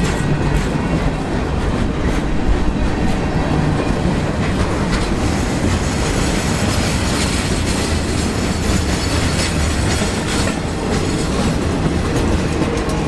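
Freight train cars rolling past close by: a steady rumble of steel wheels on the rails with a continual clickety-clack of clicks and knocks.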